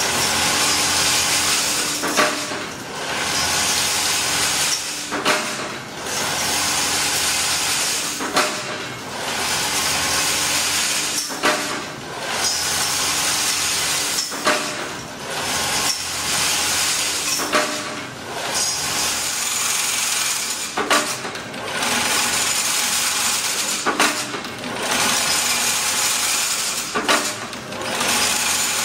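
Agape AP-1500 chain link fence weaving machine running in a repeating cycle about every three seconds. Each cycle is a steady high whirring hiss for about two seconds, then a brief dip with sharp metallic clanks.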